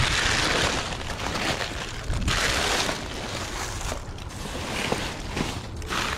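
Plastic trash bags crinkling and rustling as they are handled and pulled about, in several uneven bursts.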